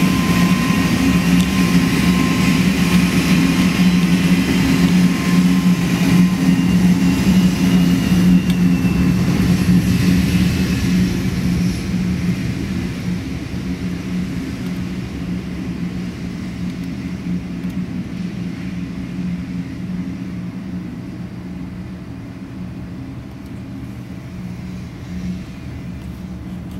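Aircraft engines running with a steady drone and a high whine. The sound is loud at first, then fades gradually over the second half as the plane moves away.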